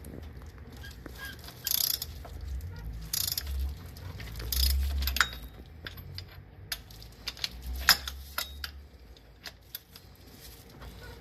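Metal hand tools and small parts clinking and rattling, with scattered sharp clicks and knocks.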